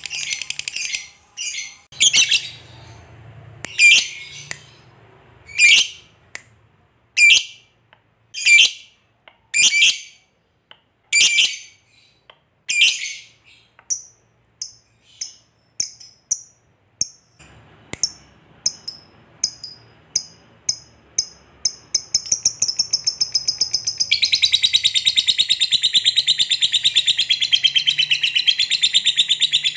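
A lovebird calling: sharp, high single calls about every second and a half, then faster, fainter chirps, breaking into a long, continuous rapid chattering trill near the end, the long 'ngekek' trill that keepers prize.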